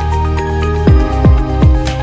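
Electronic dance music: sustained synth notes over deep bass hits that drop sharply in pitch, about four of them in quick succession in the second half.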